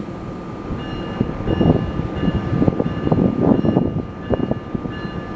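ALP-46A electric locomotive giving off a high electrical whine of several steady tones that cut in and out from about a second in, under uneven low rumbling of wind on the microphone.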